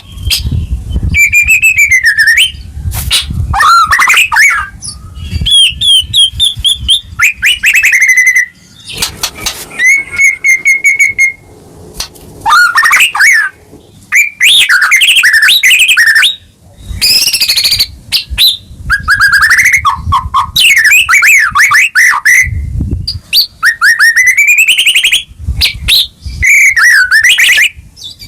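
White-rumped shama singing a long, varied song of loud whistles, rapid trills and sweeping glides, in phrases with short breaks between them.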